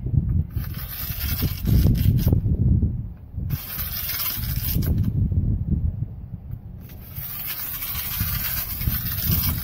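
Hand glass cutter's wheel scoring a pane of window glass along a straightedge: a gritty scratching hiss in three long passes, with quieter gaps between them. A low rumble of wind on the microphone runs underneath.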